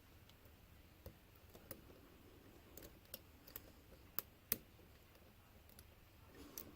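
Faint, scattered small metallic clicks of a lock pick and tension wrench working the pins of a pin-tumbler lock, irregular, with the two loudest about four seconds in.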